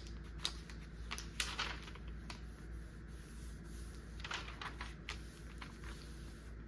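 Paper and sticker sheets being handled on a desk: faint, scattered rustles and light taps at irregular moments.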